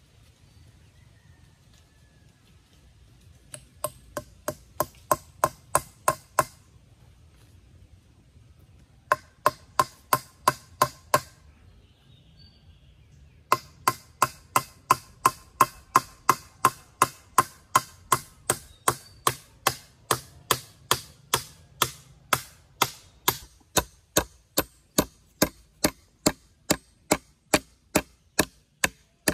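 Steel hammer driving a long nail into a wooden pole crossbar, quick ringing strikes about three a second. Two short runs of blows with pauses, then steady hammering from about halfway through.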